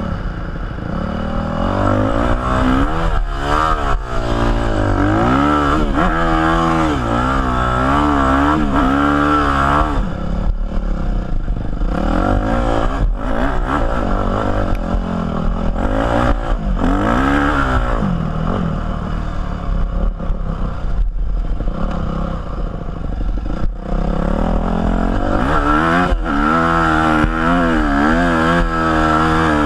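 Yamaha YZ250F motocross bike's single-cylinder four-stroke engine under load, its revs rising and falling again and again as the rider works the throttle over sand.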